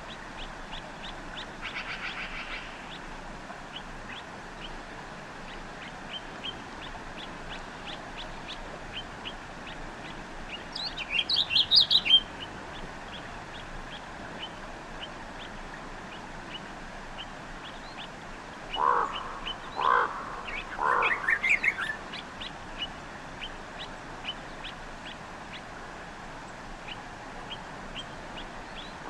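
Wild birds calling and singing: a short high chirp repeated about twice a second throughout, a loud run of rapid song about eleven seconds in, and a few lower, fuller calls in quick succession about two-thirds of the way through.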